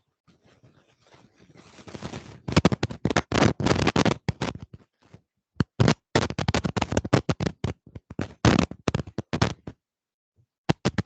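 Dense runs of scraping, crackling clicks, after a fainter rustle builds over the first two seconds; they break off briefly about five seconds in, stop shortly before ten seconds, and a few more clicks come near the end.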